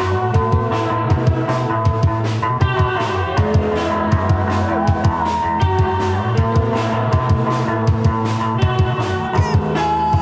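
Rock band playing live without vocals: electric bass, electric guitar and a steady drum-kit beat, with a long held note near the end.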